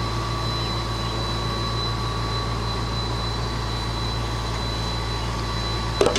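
Steady drone of a running machine, with a strong low hum and faint steady whine tones, then a brief clatter of knocks near the end.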